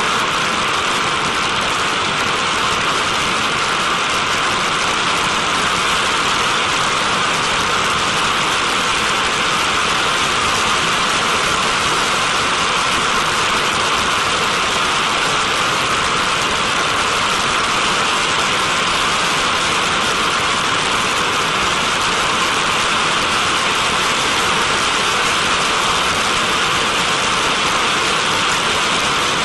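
TMS-65 decontamination vehicle's turbojet engine running at full blast, its exhaust jet spraying out an aerosol cloud, heard as a steady, loud rushing hiss.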